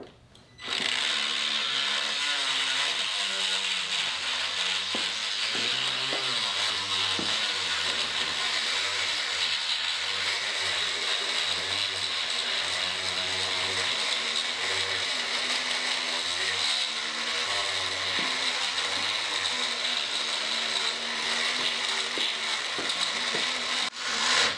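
Rotary tool (Dremel) with a grinding stone running steadily, grinding out the inside of an aluminium motorcycle handlebar end. The grinding starts about a second in and stops just before the end.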